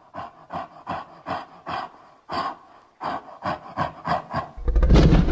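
Monster vocal sound effect: a rapid run of short, breathy huffs, two or three a second, then a loud roar that sets in near the end.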